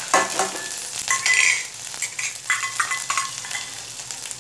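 Mustard seeds, fennel seeds, chopped green chillies and curry leaves sizzling in a little hot oil in a small tadka pan, frying in the oil's own heat with the flame off. Several short, louder scrapes of a utensil against the metal pan break in over the steady sizzle.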